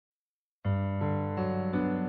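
Background music played on a keyboard, piano-like sustained chords changing every third of a second or so, starting about half a second in after silence.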